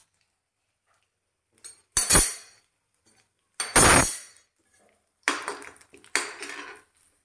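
Metal cooking utensils clanking against a kadhai: four separate knocks, the loudest two about two and four seconds in, as the hot oil with garlic is stirred.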